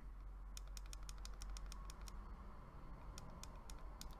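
Small plastic buttons on a Koopor Primus 300W vape mod clicking as the wattage is stepped up: a quick run of about a dozen clicks, then a few slower clicks near the end.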